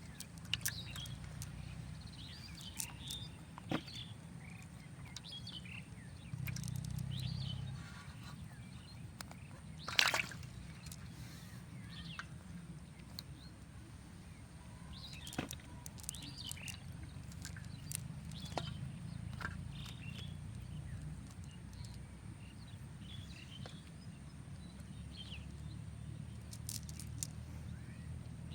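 Outdoor rural ambience: small birds chirping on and off over a steady low hum, with a few sharp clicks or knocks, the loudest about ten seconds in.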